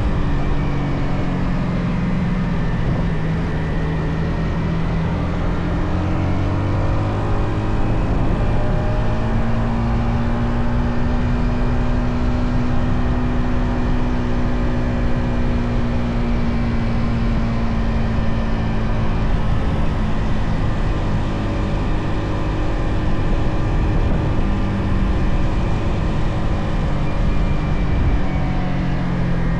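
Yamaha XSR 155's single-cylinder engine through its stock exhaust, running under way. The revs drop over the first few seconds, climb again about eight to ten seconds in and hold high for a while, then ease off near the end.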